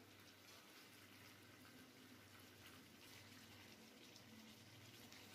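Near silence: only a faint steady hum and hiss.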